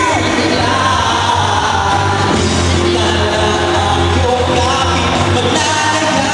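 Loud pop song played through a stage PA, with a singer's voice into a handheld microphone over a backing track and a heavy, steady bass.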